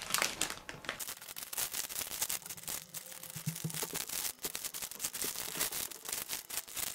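Plastic crinkling and rustling in quick, irregular handfuls as hands rummage through a large clear bag of small plastic bags of diamond-painting drills.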